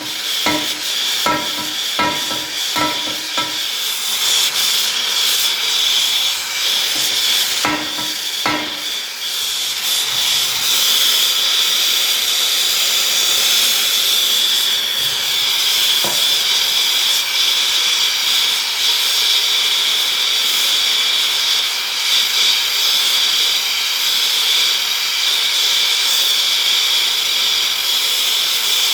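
Steady loud hiss, with sharp ringing metal strikes about twice a second for the first few seconds and two more around eight seconds in, consistent with hammer blows on a bent steel wheel rim being straightened.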